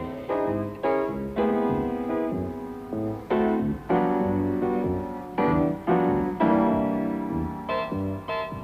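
Background music played on piano, chords and melody notes struck one after another.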